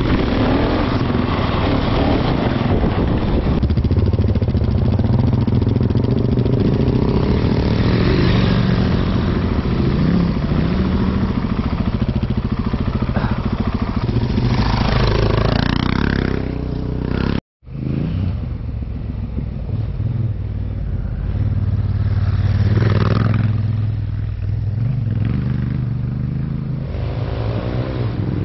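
Motorcycle engine running while riding, its pitch shifting with the throttle, over a steady rushing noise. The sound drops out abruptly for a split second a little past halfway.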